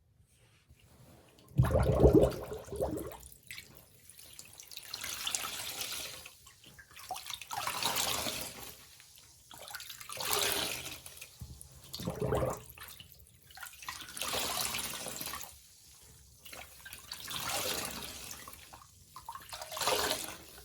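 A sponge soaked in Pine-Sol cleaner being squeezed again and again, squelching as liquid runs out, about every two to three seconds. The first squeeze, about a second and a half in, is the loudest, with a deep squelch.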